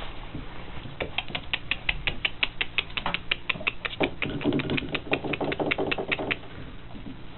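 Three-week-old Austrian Pinscher puppies moving about in a wooden whelping box: a rapid, even run of small clicks, about five or six a second, that starts about a second in and stops about six seconds in.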